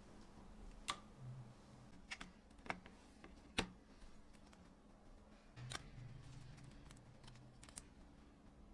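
Scattered faint clicks from the plastic frame and circuit board of a Nokia Lumia 620 phone as they are pried and separated with a plastic pry tool, several sharp ticks a second or more apart.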